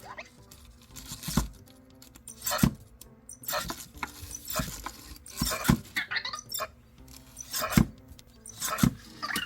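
EMO desktop robot looping the same movement: small servo motors whir briefly and its body knocks down against the surface every second or so. This is the robot's stuck 'hiccup' fault, which a power cycle cures.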